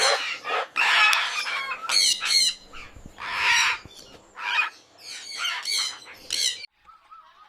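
Parrot squawking: a rapid run of harsh, repeated calls that stops about six and a half seconds in, followed by a few faint short whistles.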